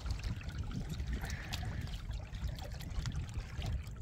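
Water lapping and trickling along a small sailboat's hull as it sails in light wind, with a low rumble of wind on the microphone.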